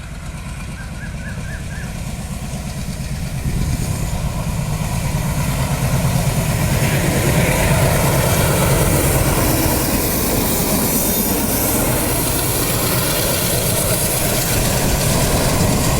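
Alco diesel locomotive and its train running past on the line, a heavy engine rumble with wheel clatter that grows louder over the first several seconds and then stays loud and steady.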